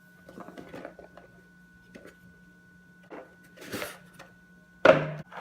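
Handling of a jigsaw puzzle box and its pieces: scattered cardboard rustles and small clicks, ending in a loud sudden rustle near the end, over a faint steady hum.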